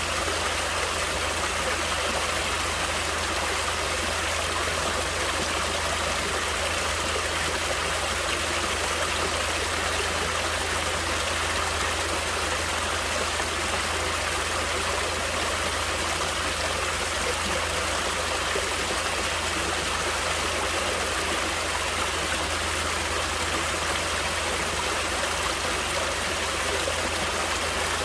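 Natural stream water flowing steadily, a constant rushing with no breaks or changes.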